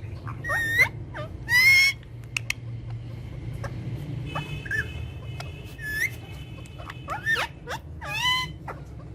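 Pet parrots calling: a string of short squawks and whistled calls that slide up and down in pitch, with the loudest ones about two seconds in and again near the end. A low steady hum runs underneath.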